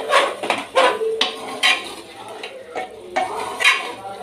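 A spoon stirring and scraping thick frying masala with pieces of mutton liver around an aluminium pressure cooker, in irregular strokes about two a second.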